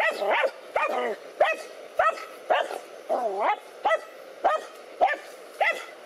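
Dogs barking in a rapid run of short barks, about two a second, a couple drawn out into a wavering yelp, as they confront a large snake.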